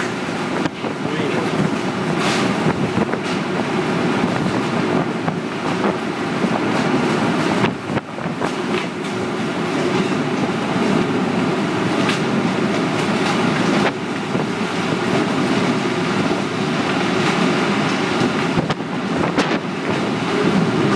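A tornado's wind, a loud steady rush with a deep rumble, broken by a few sharp knocks and clatters.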